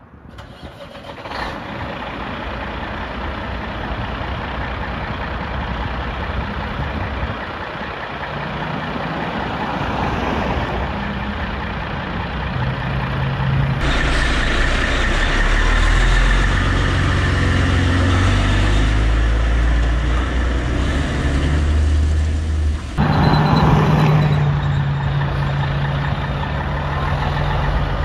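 Cat 3406E (6NZ) straight-six diesel in a Western Star 4900 grapple truck running at idle as the truck creeps out of the shop, a low steady engine drone that is loudest in the middle stretch.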